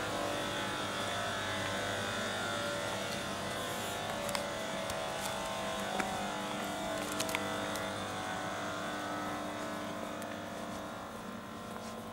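A steady electrical hum holding several steady tones, with a few sharp clicks, growing fainter near the end.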